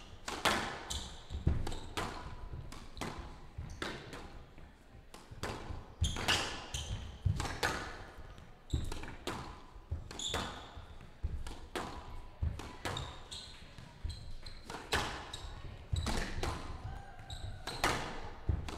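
A long squash rally: the ball cracks off racquets and the walls again and again, in an uneven rhythm of one hit every half second to a second.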